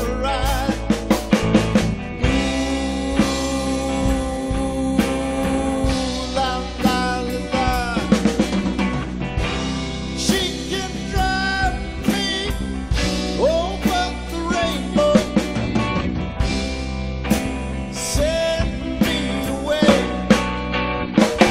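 Live rock-soul band playing an instrumental passage: electric guitar lead with notes bending in pitch over electric piano, organ, bass and drums.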